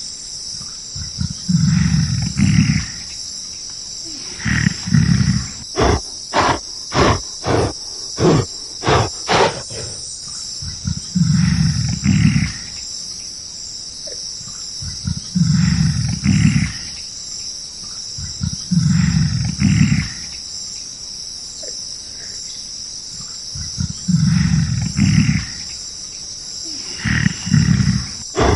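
A large animal's deep calls, repeated every few seconds: long low calls broken by a run of about eight short rapid grunts near the middle, over a steady high buzz of insects.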